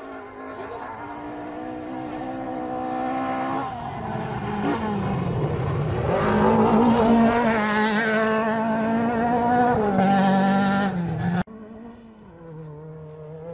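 Rally car engine at high revs coming down a gravel stage, changing gear as it nears. It passes close about six seconds in, with a spray of gravel noise, then pulls away. The sound cuts off abruptly near the end, and a fainter engine note follows.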